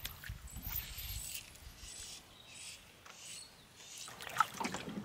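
A small hooked landlocked salmon splashing and thrashing at the surface on a fly line beside a canoe, with a run of sharp splashes and knocks in the last second.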